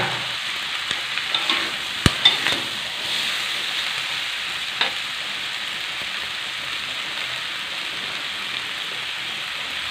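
Stir-fry of green beans, tempeh and squid sizzling steadily in a metal wok. A metal spatula scrapes and clicks against the pan a few times about two seconds in, and once more near five seconds.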